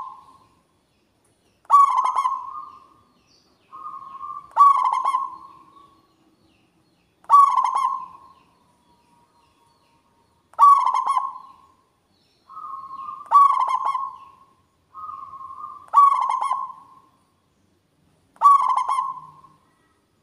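Zebra dove (perkutut) singing its loud cooing song: seven rolling coos, one every two and a half to three seconds, each fading out, several opened by a short level note.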